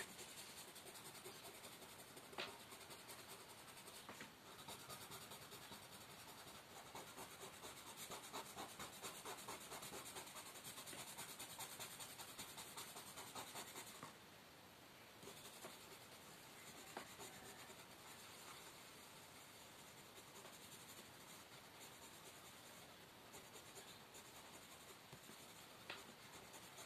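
Coloured pencil shading on paper: faint, quick back-and-forth strokes of the pencil lead across a textbook page, with a short break about halfway through.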